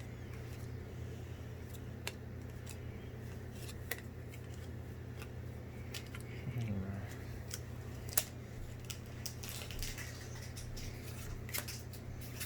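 Pokémon trading cards being handled and flipped through, making scattered light clicks and rustles over a steady low hum.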